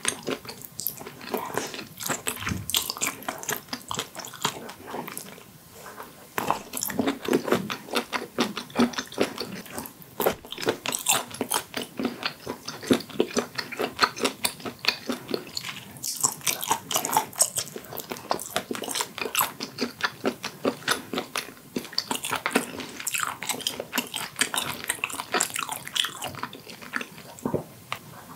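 Close-miked mouth sounds of a person chewing blanched octopus: a continuous run of small clicks and smacks.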